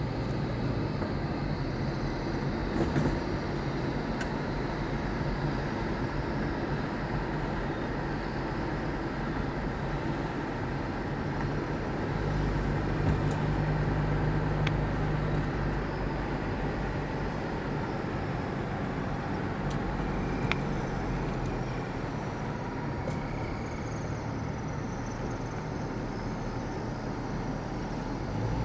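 Steady low engine hum and rumble of a car, heard from inside the vehicle.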